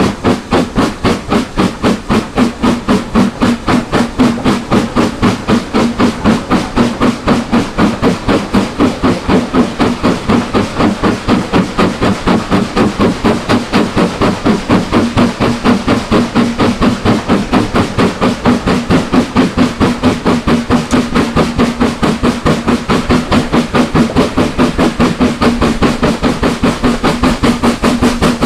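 Steam locomotive exhaust beats from BR Standard Class 4 4-6-0 No. 75069, a steady, even chuffing of roughly three beats a second: the engine working under steam and pulling its train.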